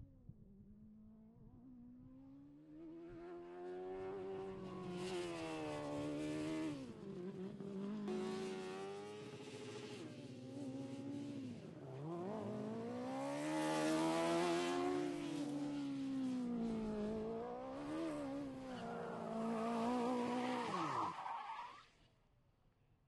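Formula SAE race car's Honda 600cc motorcycle engine revving hard while lapping. Its pitch climbs under acceleration and drops sharply on lift-off several times. It grows louder from about three seconds in and cuts off abruptly shortly before the end.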